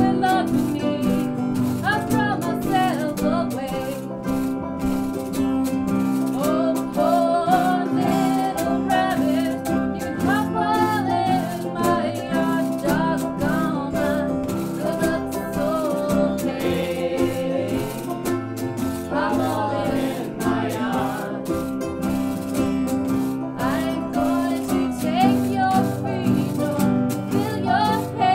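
A band playing music: a bending melody line over a steady held low note.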